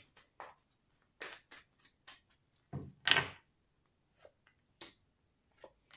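A deck of tarot cards being shuffled by hand and cards laid on a table: a scatter of short, crisp card snaps and taps, with a longer riffling rustle about three seconds in.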